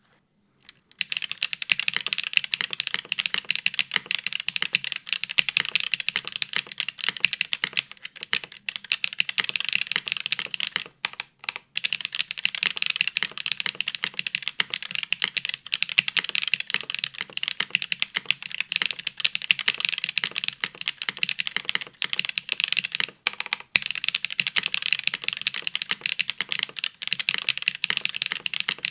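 Fast continuous typing on a custom tenkeyless mechanical keyboard (Baionlenja Gehirn TKL: top-mount aluminium plate, no foam, hotswap PCB) with dry, unlubricated WINGTREE Nezuko switches on 55 g springs and GMK keycaps. The dense clacking starts about a second in and breaks off briefly twice.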